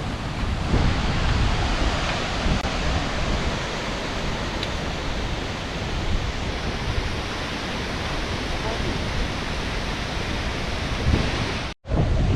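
Steady rush of a tall waterfall throwing heavy spray, falling water making an even, unbroken roar; it breaks off for a split second near the end.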